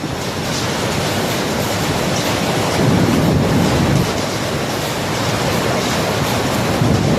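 Storm wind and heavy rain making a loud, steady rushing noise that swells a little about three seconds in.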